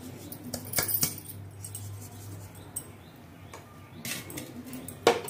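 Tamarind curry gravy heating in a clay pot, with scattered small pops and crackles over a steady low hum. A sharp click about five seconds in is the loudest sound.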